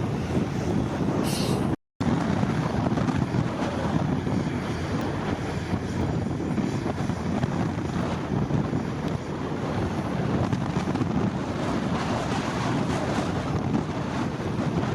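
Heavy earthmoving machinery running steadily, the low diesel engine sound of a bulldozer or dump truck at work. It cuts out for a split second about two seconds in, then carries on.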